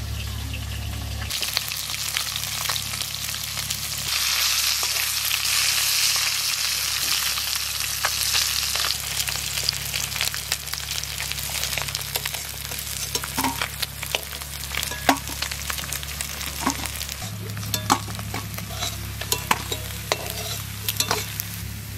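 Katla fish steaks sizzling as they fry in hot oil in a wok, the sizzle loudest a few seconds in. From about halfway, sharp clinks and taps of a utensil on metal break in over a fainter sizzle as the fried pieces are lifted out.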